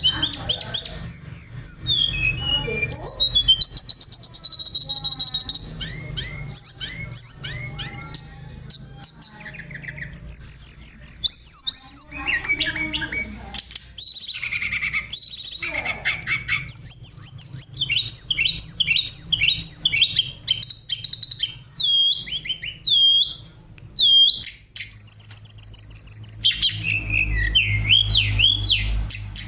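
Oriental magpie-robin (kacer) singing a rich, varied song of clear whistles, fast trills and rapid chattering phrases, one phrase after another with short breaks, over a low steady hum.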